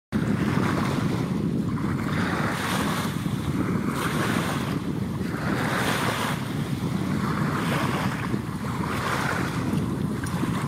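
Wind buffeting the microphone, over small waves lapping at the shoreline.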